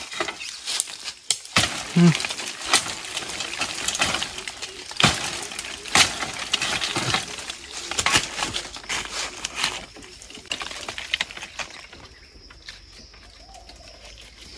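Rustling undergrowth with many sharp snaps and cracks of leaves, twigs or stems being broken, dying down after about ten seconds.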